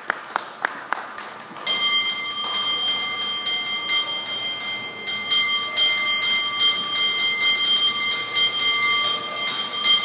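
Cable car bell rung in a rapid rhythmic routine, with a few sharp single strikes at first, then, from about two seconds in, a dense run of fast strokes over a steady ringing tone.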